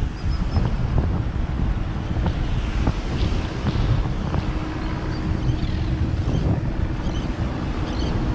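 Wind buffeting the camera's microphone in a deep, steady rumble, over the wash of surf. A few faint high chirps come through now and then.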